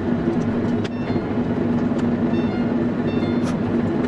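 Steady low hum and rumble of convenience-store background noise, with a few faint short high tones near the middle.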